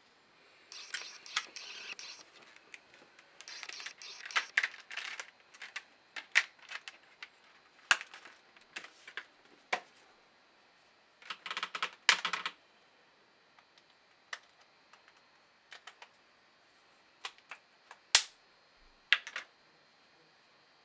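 Hands handling a phone and plastic phone cases on a desk: scattered clicks, taps and short stretches of rustling, busiest in the first half, with a few single sharp clicks near the end.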